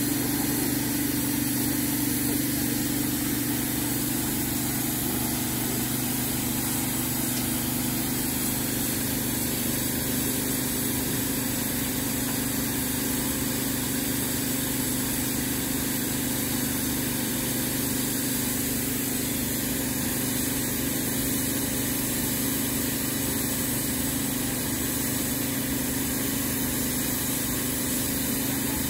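Engine of a truck-mounted cattle hoof-trimming crate idling steadily: an even hum that holds one pitch throughout.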